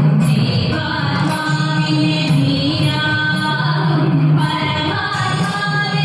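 Thiruvathira song sung by women's voices, a Kerala folk melody carried in steady phrases that accompany the Thiruvathirakali dance.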